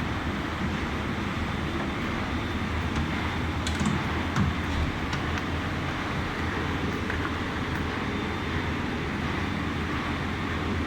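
Steady machinery hum and air noise of running electrical plant, with a few light clicks and knocks about four to five seconds in as the metal starter-cubicle door is handled onto its hinges.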